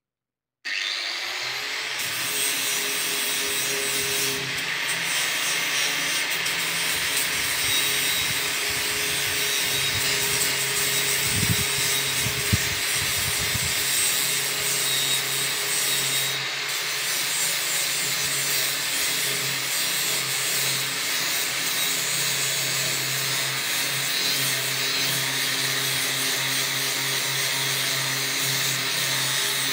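Angle grinder running steadily, scouring rust off a steel pipe with an abrasive attachment; it starts suddenly about half a second in.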